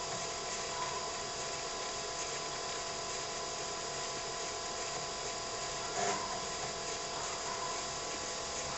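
TRS-80 Model 16B computer running: a steady whirring hum from its fans and 8-inch floppy drive, with several steady tones over an even hiss. A brief faint noise comes about six seconds in.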